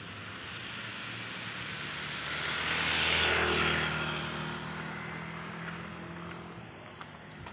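A motor vehicle passing by: a steady engine hum under a hiss that swells to its loudest about three seconds in and then fades.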